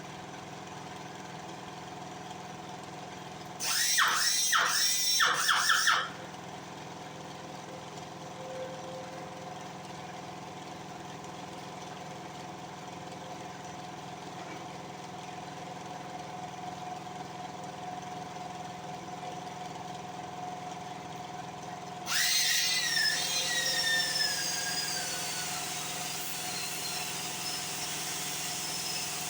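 Steady hum of workshop machinery. About four seconds in comes a loud burst of four quick metallic pulses lasting about two seconds. Near the end a loud metallic squeal starts suddenly and slowly falls in pitch over several seconds.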